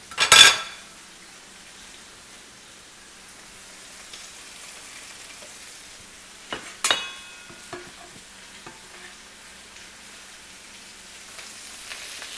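Risotto frying in a hot pan with a steady low sizzle while it is stirred; a loud clatter about half a second in and a ringing metal clink about seven seconds in as the utensil strikes the pan.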